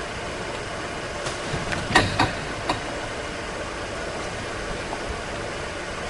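Steady mechanical hum, with a quick cluster of sharp knocks about two seconds in and one more knock a moment later.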